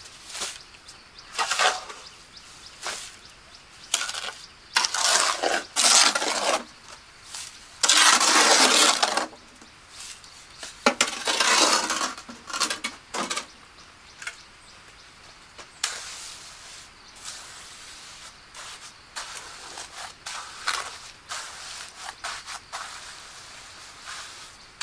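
Irregular scraping and clinking of hard objects being handled, in bursts of up to about a second, thinning to scattered small clicks in the second half.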